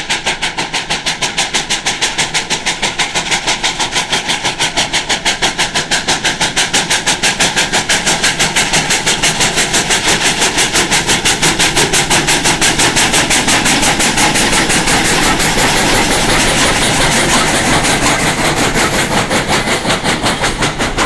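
Two steam locomotives, Sierra Railway No. 28 and M.C.R.R. No. 18, double-heading a passenger train past at close range, their exhaust chuffing in a rapid, even beat. Toward the end the passenger cars roll by.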